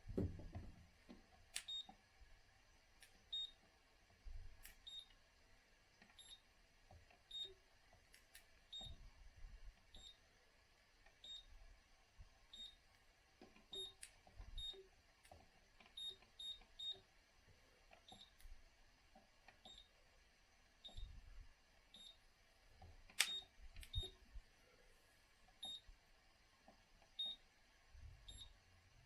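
Zanussi IZ 16 S washing machine control panel giving short, high beeps at irregular intervals as its buttons are pressed to step through temperature, spin and option settings. A few sharp clicks come in between the beeps.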